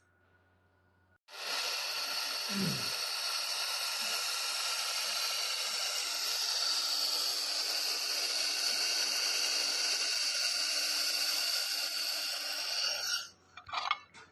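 Laser welding and cleaning machine firing: a steady hiss laced with high, steady whining tones, starting suddenly about a second in and cutting off near the end. A few short knocks follow.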